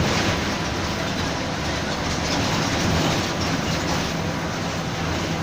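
Mercedes-Benz OF-1722M city bus under way: its diesel engine and drivetrain run with a steady drone over loud road and body noise, the differential growling.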